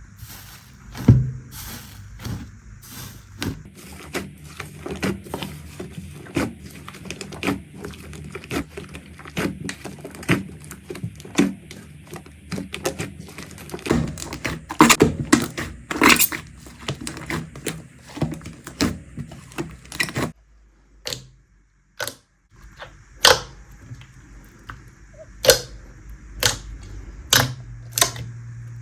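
Slime being squeezed and poked by hand, giving irregular sticky clicks and pops, with a short quiet break about two-thirds of the way through.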